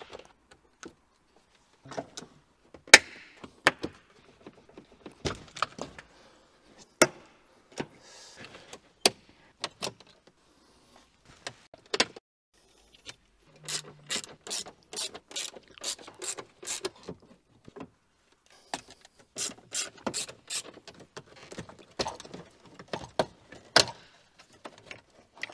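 Sharp plastic clicks and knocks as the BMW M2's centre-console trim is pried and its clips are popped loose, with two runs of rapid, even clicking at about four a second around the middle and again a little later.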